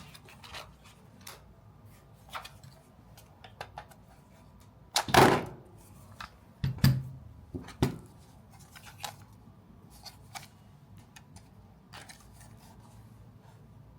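Handling noises from hands working with a small object and its packaging: scattered clicks and light taps, with a louder scraping knock about five seconds in and a few more knocks just after.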